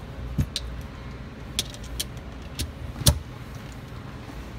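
Chrome socket-set tools, a ratchet handle and extensions, clinking and knocking against each other and the case tray as they are handled. About half a dozen separate, irregular metal clicks, the loudest about three seconds in.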